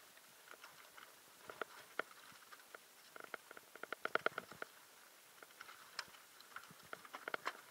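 Mountain bike rattling over a rough, rocky trail: irregular clicks and knocks from the bike and its tyres on loose stones, with a dense run of rattles in the middle and another near the end.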